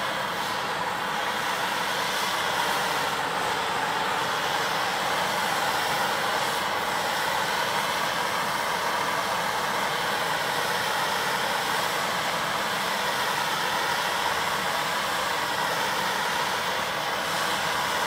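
Handheld MAPP-gas torch burning, its flame jet giving a loud, steady hiss as it is held against a piece of fire-resistant coated fabric.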